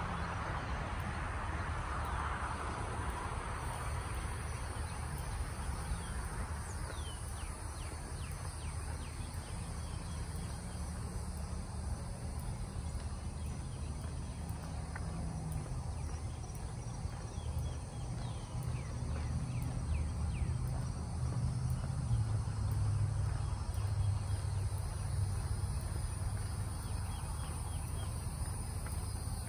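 Outdoor ambience: a steady low rumble under a steady high insect drone, with short bird chirps coming in from about a quarter of the way in.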